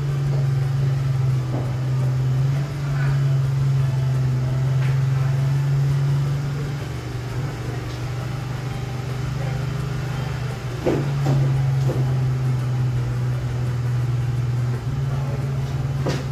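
An engine running steadily, its hum dipping slightly in pitch for a few seconds mid-way and then recovering, with a few light knocks.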